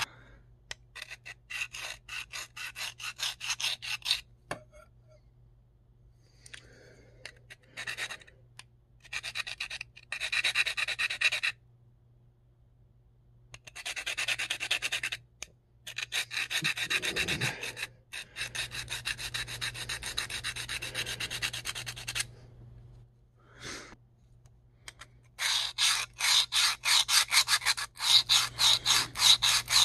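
M4 steel blade of a Spyderco PM2 Tanto scraped back and forth across a handheld diamond sharpening plate, in runs of rapid rasping strokes with short pauses between, the strokes fastest and loudest near the end. It is grinding away steel to reshape a damaged tanto tip before the edge bevel is set.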